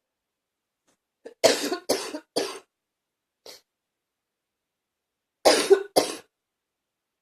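A person with a lingering cough coughing: three coughs in quick succession about a second and a half in, then two more close together near the end.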